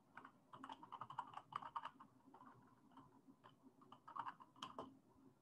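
Faint typing on a computer keyboard: a quick run of keystrokes, a few scattered taps, then another short run about four seconds in.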